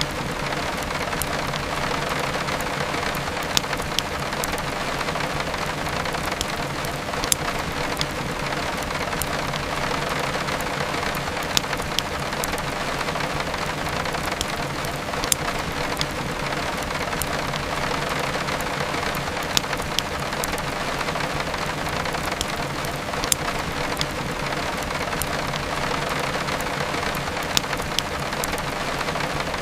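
Steady heavy rain, with sharp crackles and pops from a wood fire every second or two.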